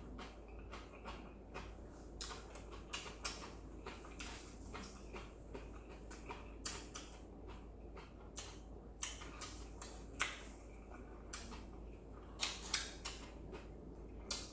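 A person eating stir-fried ramyeon noodles: soft, irregular slurps and chewing with small clicks of utensils on the bowl, over a steady low hum.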